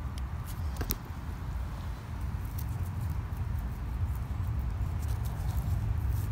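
Scattered small clicks and scrapes of loose creek gravel and rock as a hand works around a half-buried geode, over a low rumble on the microphone; the sharpest click comes about a second in.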